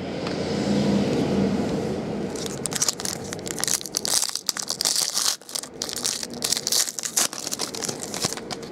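Foil wrapper of a 2012 Bowman Sterling football card pack being torn open and crinkled by hand. A softer rustle turns into a dense run of sharp crackles and rips about two seconds in.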